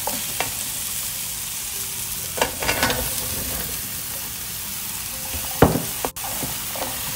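Diced potatoes and shallot sizzling in an oiled metal pan while a wooden spoon scrapes and stirs them. Chunks of zucchini tumble in from a plate with a clatter partway through, and there is one loud knock near the end.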